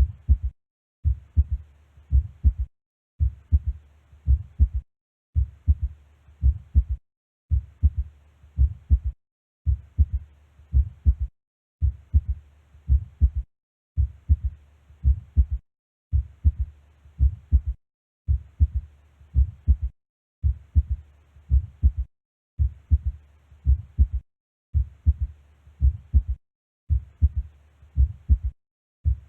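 Stethoscope recording of heart sounds: a short run of a few low beats, looped and repeating about every two seconds with a brief silent gap between repeats.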